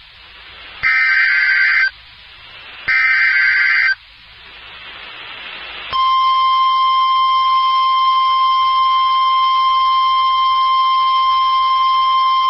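NOAA Weather Radio Emergency Alert System sequence. Two buzzy SAME digital header bursts, each about a second long and a second apart, are followed by radio static hiss that swells. About six seconds in, the steady 1050 Hz warning alarm tone starts and holds; it signals a severe thunderstorm watch.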